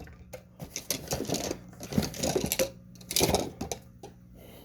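Metal hand tools clinking and rattling against each other, rapid irregular clicks and clatter, as a nut driver is searched out from among them.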